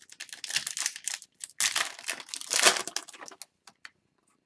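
Foil wrapper of a hockey card pack crinkling as it is handled and crumpled, in two spells of rustling over about three and a half seconds.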